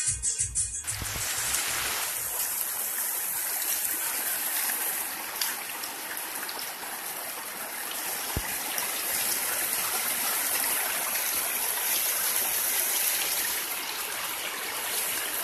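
Steady rushing noise of running water, starting about a second in as music cuts off.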